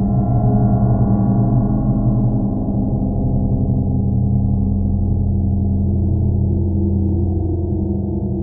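Underwater drone of a camera rig held in a strong river current: several steady low tones ringing together, a little louder and brighter in the first few seconds.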